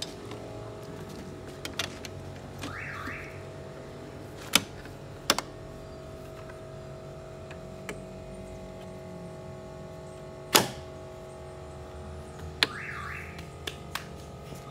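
Sharp clicks and knocks of tools and parts being handled during car reassembly, the loudest about four and a half, five and a half and ten and a half seconds in, with a few short scraping sounds, over a steady hum.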